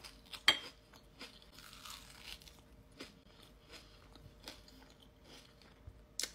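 Mouth chewing a Dubai chocolate bar, chocolate around a crunchy kataifi and pistachio filling: a string of crisp crunches, the loudest about half a second in.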